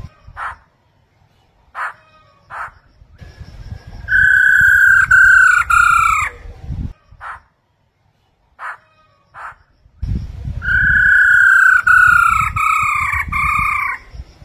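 Black-throated laughingthrush calling: scattered short, sharp notes, and two runs of three or four loud, down-slurred whistles, about four seconds in and again about ten seconds in, with a low rumble under the whistles.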